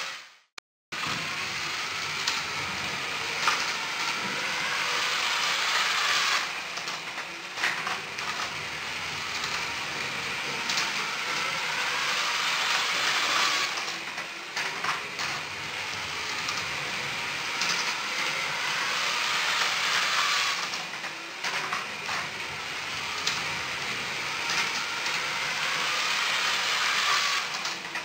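Lego 9V train motors whirring and plastic wheels clicking along the track as two trains circle, the sound swelling and fading about every seven seconds as they pass close by, after a brief silence at the start.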